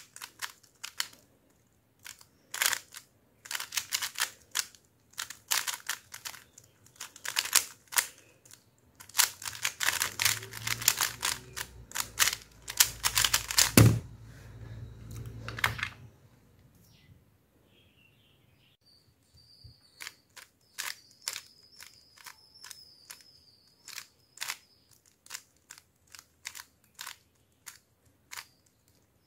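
Plastic 3x3 speedcube clicking and rattling as its layers are turned fast in a speedsolve, ending about 14 seconds in with a sharp knock as the hands come down on the timer pads. After a short lull, single clicks of slower turns.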